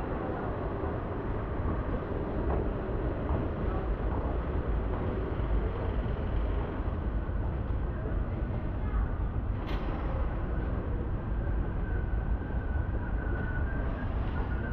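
Steady ambient noise of a railway station interior: a low rumble with indistinct background voices, and a single sharp click about ten seconds in.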